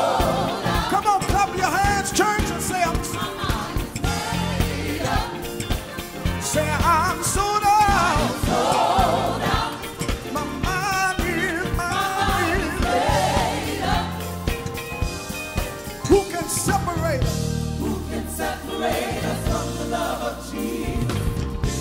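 Gospel choir singing together over band accompaniment with a steady beat, with hand-clapping.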